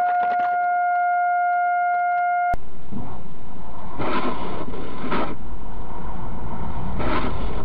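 A long, perfectly steady single-pitched beep or horn tone, cut off after about two and a half seconds by a sharp click. Then steady road and engine noise inside a moving car from a dashcam, with a low rumble and several brief swells of noise.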